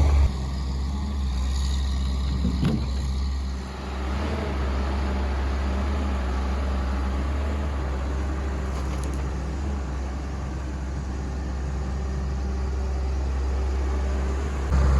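John Deere 690D-LC excavator's diesel engine running steadily while working.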